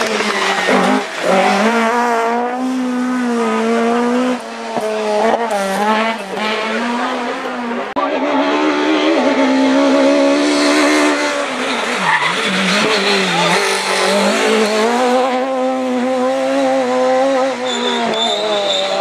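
Rally car engines revving hard through corners, one car after another, the pitch climbing and dropping repeatedly as the drivers lift off and change gear.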